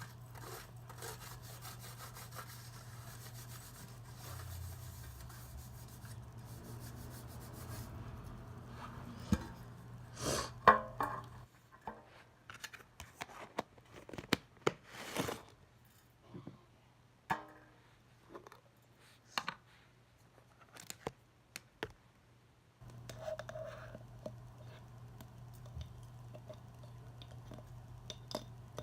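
Slime being handled and squeezed: irregular clicks, crackles and squishes, thickest in the middle stretch, over a steady low hum.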